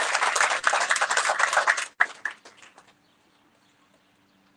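Audience applauding. The clapping cuts off about two seconds in, a few scattered claps trail after it, and then only a faint steady hum remains.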